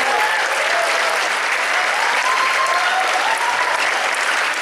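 Large audience applauding steadily, with faint voices rising and falling in pitch through the clapping.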